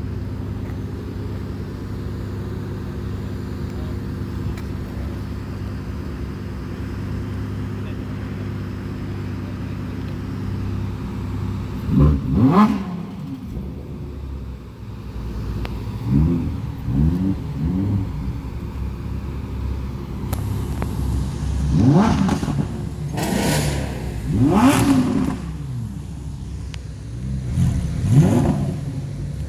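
Sports car engine idling steadily, then revved in a series of quick blips about halfway through and again several times near the end, each rev rising sharply in pitch and falling back to idle.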